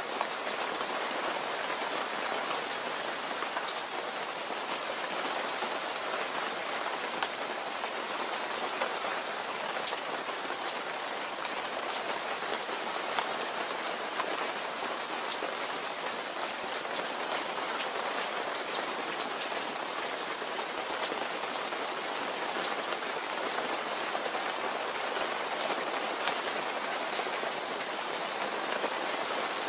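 Steady rain falling on a surface, a dense even hiss with many individual drops ticking.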